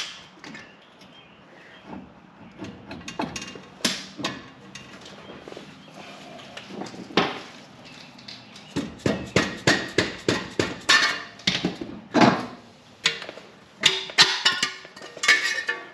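Repeated sharp metal knocks and clanks as the old front wheel hub and bearing assembly is worked loose from the steering knuckle, coming scattered at first and then in a quick run of several knocks a second from about nine seconds in.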